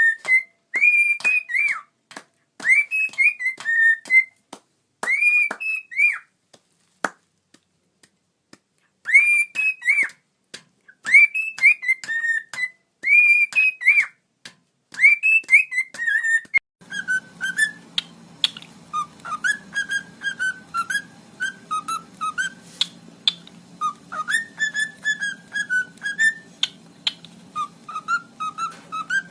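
A pet parrot whistling a tune in repeated phrases of arching notes, with short pauses between them. From about halfway through, the whistling runs lower and more continuously over a steady low hum.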